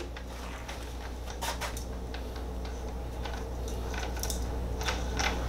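Faint scattered clicks and light metallic taps from handling a Festool AGC 18-125 cordless angle grinder with a wire wheel threaded onto its arbor, over a steady low hum.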